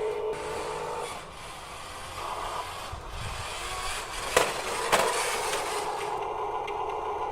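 Electric drive motors and plastic gearboxes of a Huina 1554 RC bulldozer whining as it runs. The pitch changes about a second in and shifts again over the next two seconds. Two sharp clacks come about four and five seconds in, and then the steady whine returns.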